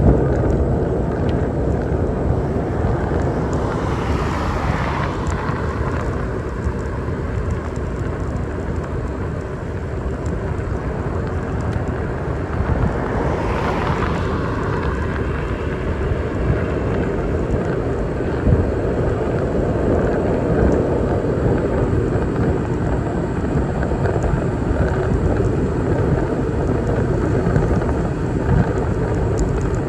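Wind rushing over the microphone with road rumble from a bicycle ride along a city street, steady throughout. Two vehicles swell past, about four and thirteen seconds in.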